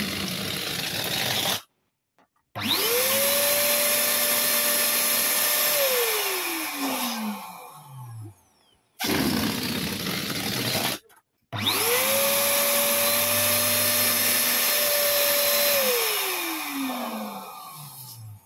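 Electric balloon pump inflating balloons, running twice. Each run starts with a short rush of air, then the motor spins up to a steady whine that holds for a few seconds before it winds down after switching off.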